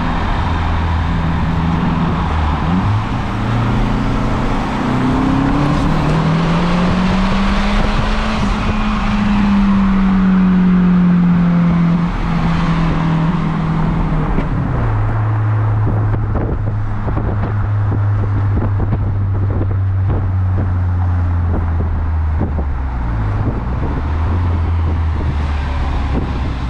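Cars driving in street traffic, engine and road noise heard through an open car window. An engine rises in pitch and falls back between about 5 and 12 seconds as it accelerates, then settles into a steady low drone.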